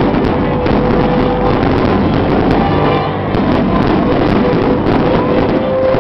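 Fireworks going off at close range: a dense, continuous rumble and crackle of bursts with many sharp cracks.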